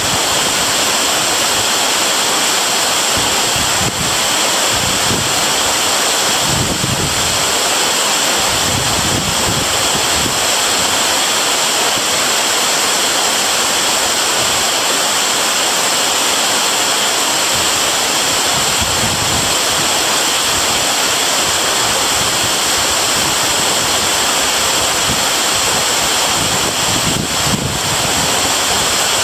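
Waterfall pouring: a steady, dense rush of falling water, with occasional low gusts of wind on the microphone.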